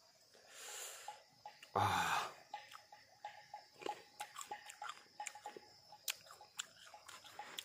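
A person chewing green nhót (oleaster) fruit in chili sauce, with many small irregular wet clicks. A soft breath comes just under a second in, and a loud short breathy vocal sound about two seconds in.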